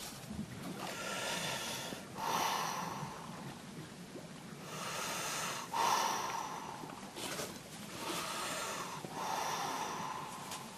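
A freediver breathing deeply at the surface: three slow breath cycles, each a loud rushing breath out and in, about three seconds apart.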